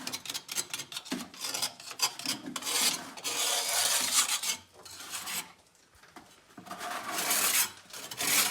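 Irregular scraping and rubbing noise in bursts, with a lull about five and a half seconds in.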